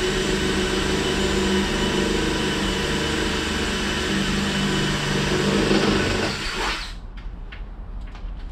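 Handheld electric drill running steadily under load as it bores a pilot hole through the ambulance box wall. About six and a half seconds in, the motor falls in pitch and stops.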